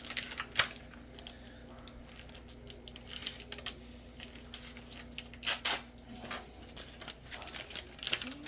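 Booster pack foil wrapper being crinkled and torn open and the cards handled: scattered crackles and rustles with a few sharper snaps, over a faint steady hum.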